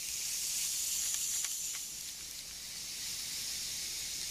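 ASMR hand sounds close to a handheld stereo recorder's microphones: a steady high hiss with a few faint soft clicks about a second in.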